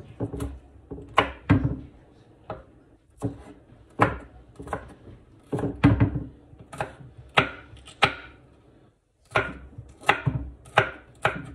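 A large kitchen knife dices a yellow bell pepper on a wooden cutting board. The blade knocks on the board in an irregular run of chops, roughly one or two a second, with a short pause about nine seconds in.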